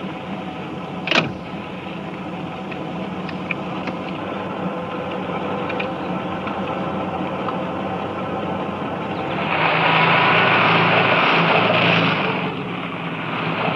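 Car engine and road noise from inside a moving car, a steady running hum with one sharp click about a second in. The sound grows louder for about three seconds near the end, then eases off.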